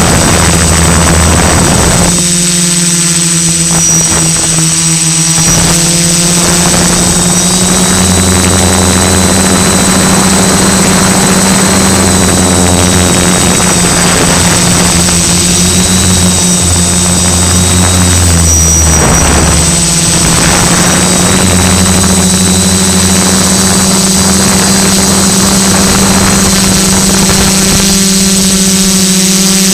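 Multicopter's electric motors and propellers buzzing steadily close to the onboard camera, with a lower hum that comes and goes as the craft manoeuvres and a thin high whine throughout.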